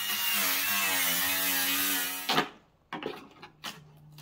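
Power drill spinning for a little over two seconds, its motor pitch wavering under load as it backs a screw out of the refrigerator's top, then stopping abruptly, followed by a few short clicks and knocks.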